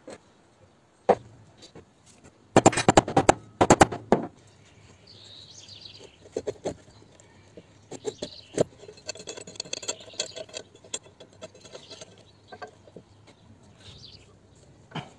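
Sharp metallic clicks and rattling from a threaded steel rod with a hinged metal tab being handled and fitted. There is a loud run of rapid clicks about three seconds in, and quieter quick ticking a few seconds later.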